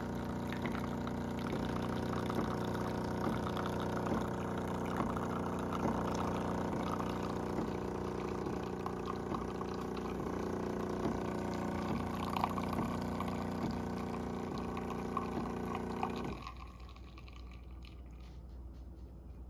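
Jura A1 bean-to-cup espresso machine brewing an espresso into a mug: its pump hums steadily with a regular light ticking over the trickle of coffee from the spout, then stops abruptly about sixteen seconds in as the shot finishes.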